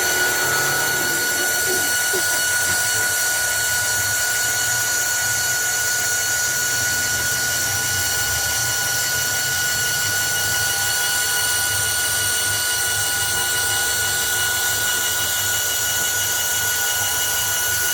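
CNC wood-turning lathe running and turning drumstick blanks: a steady machine noise with a constant high whine over a hiss.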